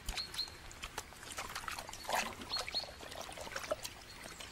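Water splashing and trickling in irregular small splashes as a mink wades and swims through a shallow stream. A few short, high chirps sound over it.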